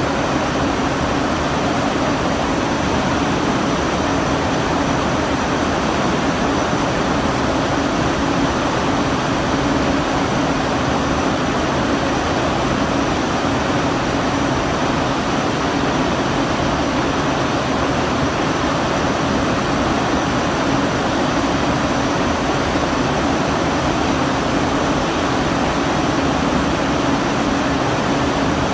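A line of CNRM rope-twisting machines making nylon and PP raffia rope, running with a loud, steady mechanical whirring drone and an even hum.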